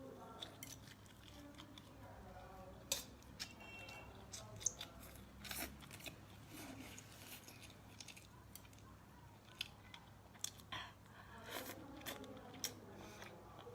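Faint, scattered clicks and taps over quiet background noise, with faint voices murmuring in the distance at times.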